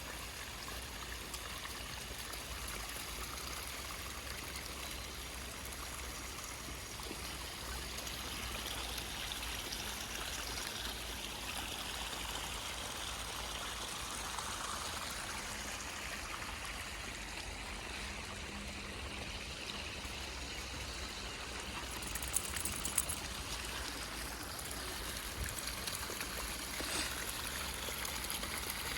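Rain-swollen stream running steadily, a continuous rush of flowing water. A few brief sharp sounds stand out about two-thirds of the way through.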